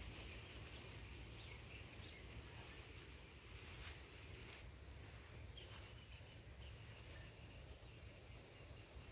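Near silence: faint outdoor field ambience with a low rumble, a faint high steady sound and a few soft clicks.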